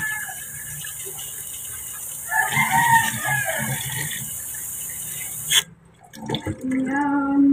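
A rooster crows in the background over a steady high hiss, and the hiss cuts off sharply about five and a half seconds in.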